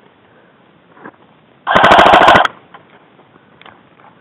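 Airsoft gun firing one short full-auto burst of rapid shots, lasting under a second, about two seconds in.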